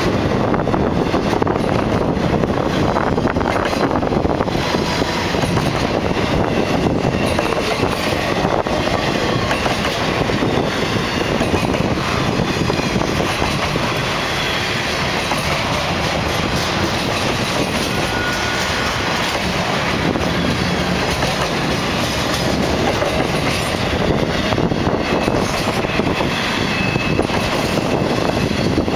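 Cars of a BNSF intermodal freight train, highway trailers on flatcars, rolling past close by: steel wheels running steadily over the rails.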